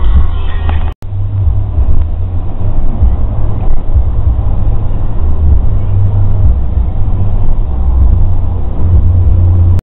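Steady low rumble of a car's engine and tyres heard from inside the cabin while driving. Music ends abruptly about a second in.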